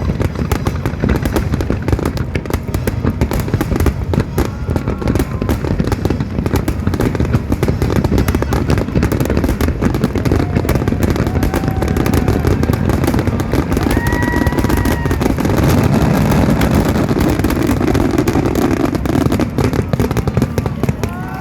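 Fireworks finale barrage: dense, unbroken rapid shell bursts and crackling, with deep thuds underneath throughout.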